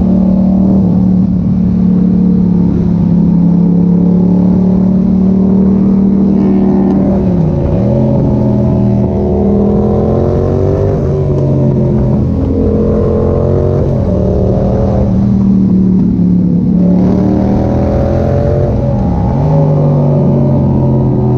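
Yamaha MT-07's 689 cc parallel-twin engine running loud through an Arrow exhaust with the dB killer removed. Its note holds steady for several seconds at a time, then dips and climbs again a few times.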